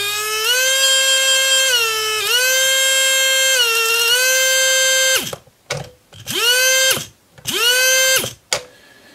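Brushed electric RC motor run through a Demon 2C speed controller on radio throttle, whining as it spins up and holding speed for about five seconds with two short dips. It then stops sharply and is given three or four short bursts of throttle, each spinning up and cutting off quickly: the repaired controller working properly with the radio.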